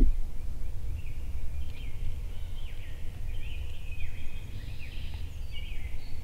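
Songbirds singing in the background, a string of short chirps and quick sweeping whistles, over a steady low rumble.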